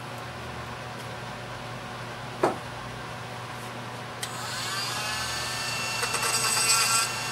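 A single knock, then about four seconds in a handheld rotary tool with a small bit starts up, its high whine rising as it spins up. Near the end, light grinding as the bit works the wood of the carved piece.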